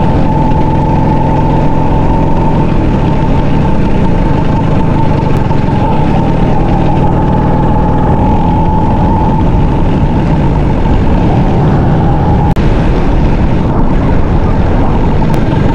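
Two-stroke Vespa PX scooter engine running at a steady cruise under the rider, with a steady high note over a low rumble. It dips briefly once near the end.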